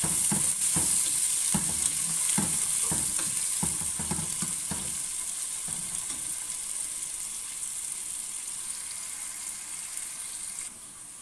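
Sliced onions frying in hot oil in a pot: a steady sizzle, with the scrape and knock of a spatula stirring them for the first five seconds or so. The sizzle falls away sharply near the end.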